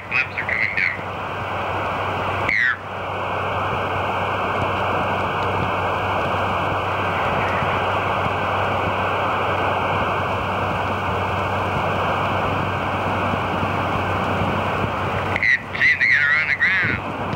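Steady static hiss of an open air-to-ground radio channel with no one talking. Brief warbling whistles come at the start, about two and a half seconds in, and again near the end.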